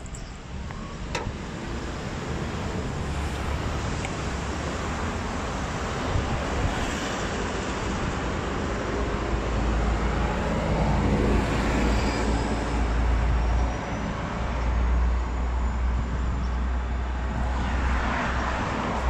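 Steady road traffic noise: a low rumble of passing vehicles that gradually grows louder.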